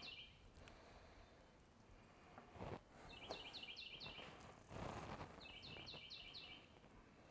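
A small songbird singing faintly in the background: a short phrase of four or five quick, high notes, repeated about every two and a half seconds. Two brief soft rustles come in between the phrases.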